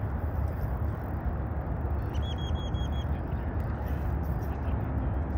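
Steady low outdoor rumble, with a quick run of about five high chirps about two seconds in.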